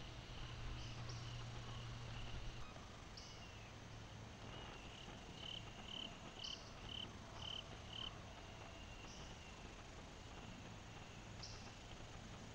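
Faint insect chirping, with a run of six short, evenly spaced chirps about two a second near the middle, over a low steady hum.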